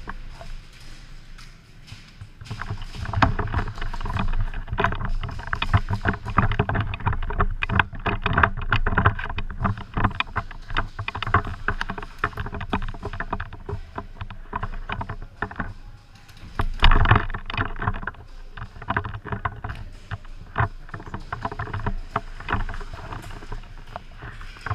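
Dense, irregular rustling and crackling over a low rumble. It thickens about three seconds in and is loudest about two-thirds of the way through.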